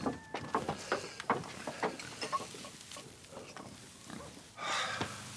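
Straw rustling and crackling as someone shifts in a heap of hay, with a pig grunting near the end.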